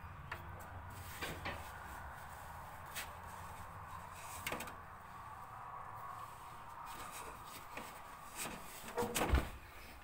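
Tractor's metal foot pedals and steel footplate knocking and clunking under a bare foot, a few scattered knocks and then a louder cluster of clunks about nine seconds in, over a faint steady hum.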